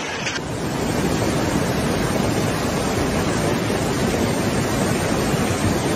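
Fast-flowing floodwater rushing in a torrent: a steady, dense rushing noise that sets in abruptly about half a second in.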